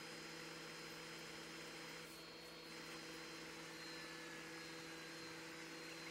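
MrCool DIY mini-split outdoor unit's compressor running in cooling mode, a steady hum, as it draws R-410A refrigerant in from the charging tank.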